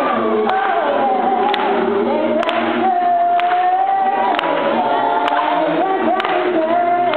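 A teenage vocal group singing in harmony into microphones, a cappella, with several voices holding and sliding notes together. A sharp tap marks a beat about once a second.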